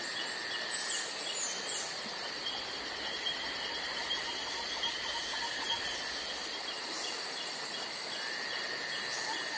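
Steady insect chorus: a high continuous buzz with short chirps repeating over it.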